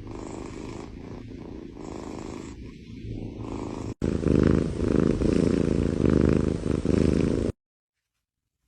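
A cat purring steadily. It gets louder after a cut about four seconds in, then stops abruptly about a second before the end.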